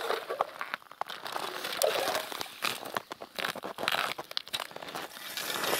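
Hand ice auger being turned in lake ice, its blades scraping and crunching through the ice with irregular crackling.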